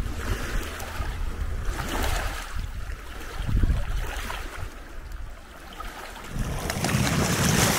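Small waves lapping on a lakeshore, with wind rumbling on the microphone; the water and wind noise swells louder near the end.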